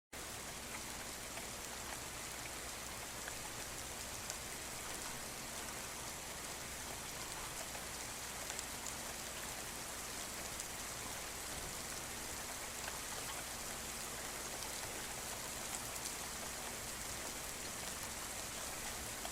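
Steady rain falling, an even hiss dotted with small drop ticks, starting and stopping abruptly.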